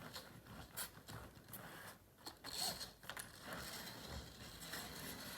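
A model train running on its track: small irregular clicks and rattles from the wheels on the rails, over a faint steady running noise that gets a little louder about halfway through.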